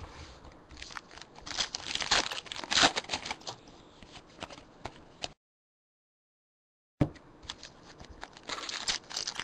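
Hands flipping and sliding through a stack of trading cards, then handling a sealed plastic card pack: crisp clicks of card edges and crinkling of the wrapper. The sound cuts out completely for about a second and a half past the middle.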